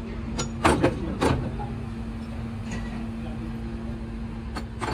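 A steady machine hum with a few sharp knocks in the first second and a half; the hum cuts off near the end with another knock.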